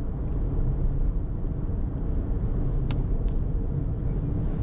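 Steady tyre and engine rumble of a car at highway speed, heard inside the cabin. About three seconds in come two sharp ticks, a third of a second apart: sand and small stones thrown up on a road-works stretch striking the car.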